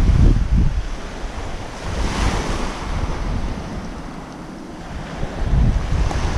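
Small waves washing up onto a pebbly beach, with wind buffeting the microphone. The wash swells about two seconds in, and the wind gusts are loudest at the start and again near the end.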